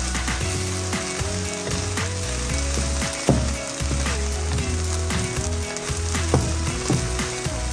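Fried rice sizzling in a hot pan while a wooden spatula stirs and scrapes through it, with scattered sharp scraping clicks. A soft background tune of long held notes, stepping up and down in pitch, runs underneath.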